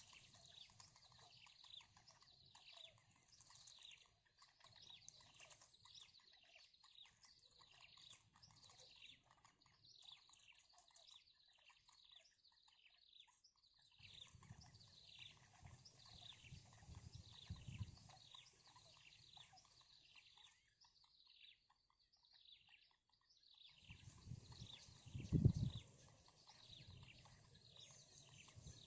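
Small birds chirping faintly: a rapid run of short, high, falling chirps that pauses for about two seconds near the end. A single low thump comes just after the pause.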